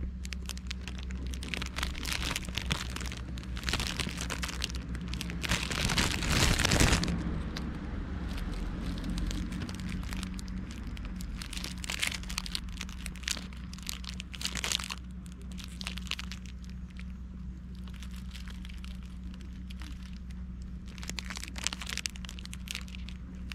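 Clear plastic crepe wrapper crinkling in irregular bursts as it is handled and peeled back, loudest about six seconds in, over a steady low hum.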